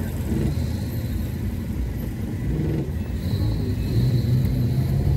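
Motor vehicle running, a steady low rumble.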